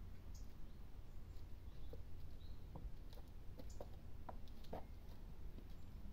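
Light scattered taps and clicks, goats' hooves on a wooden slat walkway, over a low steady rumble, with a few faint small bird chirps.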